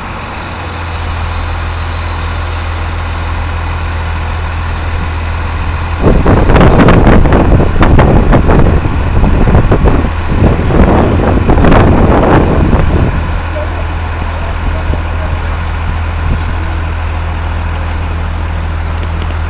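Industrial washing machine running with a steady low hum; about six seconds in, a loud, rough rushing noise starts and lasts about seven seconds before only the hum is left.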